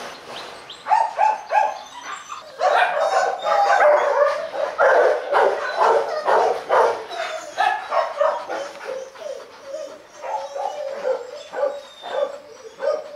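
Dogs barking in repeated short runs: three quick barks about a second in, then a dense stretch of barking, and a steadier string of barks near the end.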